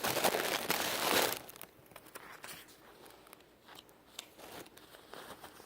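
Packaging being handled and crinkling: a loud rustle for about the first second and a half, then softer scattered crinkles.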